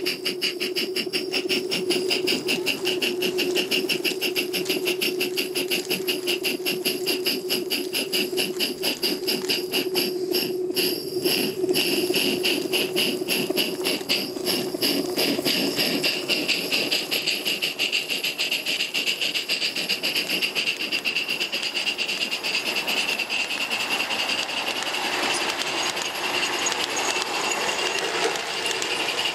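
Live-steam 1:20.3-scale K-36 model locomotive running: a fast, even beat of exhaust chuffs over a steady steam hiss. The chuffs blur into a more continuous hiss near the end.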